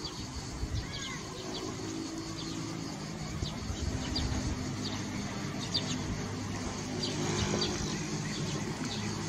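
Small birds chirping in short, scattered calls over a steady high insect buzz, with a low steady hum underneath.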